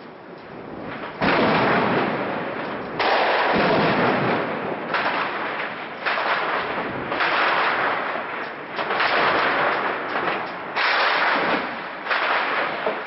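Heavy gunfire and blasts from an urban battle, heard at a distance: a string of about eight sudden loud reports, each followed by a long rolling echo lasting a second or two.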